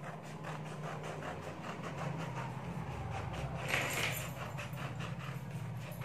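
Scissors cutting a circle out of a sheet of paper: a fast, even run of small snips over a steady low hum, with a brief louder rustle of the paper about four seconds in.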